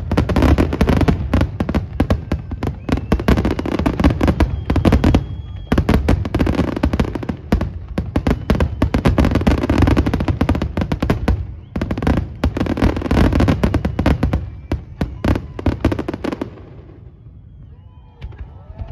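Fireworks display: a dense barrage of rapid bangs and crackling shell bursts, with two short lulls about five and eleven seconds in, dying away near the end.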